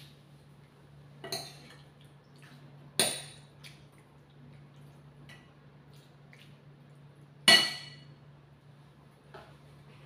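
Dishes and kitchenware being handled: about five separate knocks and clinks, the loudest a ringing clink about seven and a half seconds in, over a steady low hum.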